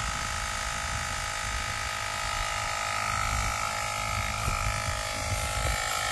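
Handheld cordless electric tyre pump running steadily with a whine as it inflates a bicycle tyre toward 2.5 bar, growing a little louder near the end.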